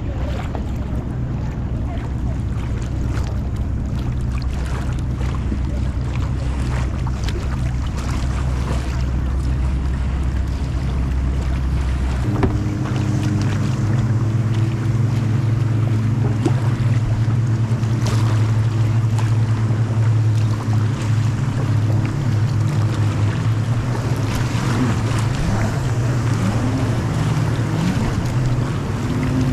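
A motorboat's engine running steadily, its hum stepping up to a higher pitch about twelve seconds in, with wind buffeting the microphone and water noise.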